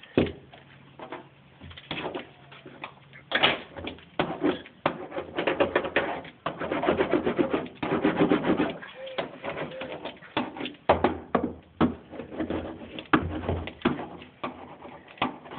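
A small hand roller and a hand pressing and rubbing self-adhesive sound-deadening mat onto a car's floor pan: a run of short scraping strokes and knocks. Around the middle comes a louder, low pitched cooing sound.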